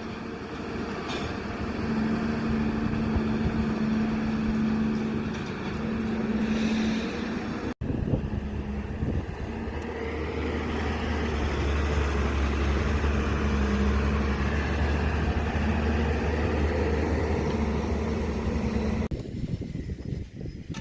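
A large engine running steadily with a deep low hum, dropping out for an instant about eight seconds in and changing abruptly near the end.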